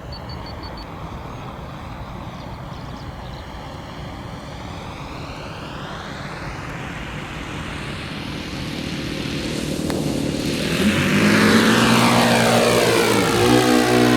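Model Cessna 337 Skymaster's engines running, growing steadily louder as the plane comes in close on a touch-and-go. Near the end the pitch falls as it passes by, then the engines hold a steady note.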